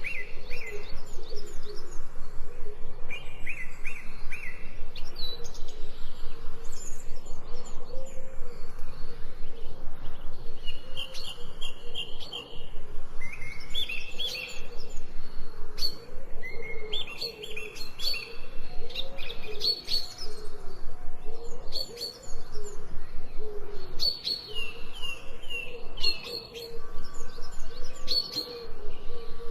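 Several birds chirping and singing in short, repeated trilled phrases, overlapping one another. A lower wavering sound runs steadily underneath.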